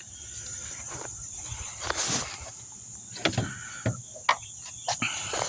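Crickets chirping as a steady high-pitched trill, with a short hiss about two seconds in and several sharp clicks and knocks of parts being handled inside a car door during lock actuator removal.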